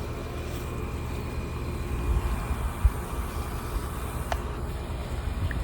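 Tractor engine running steadily, with a few low thumps about two to three seconds in.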